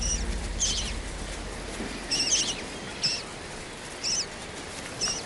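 Gull chicks peeping: short, high-pitched calls with a wavering pitch, repeating about once a second, some in quick pairs.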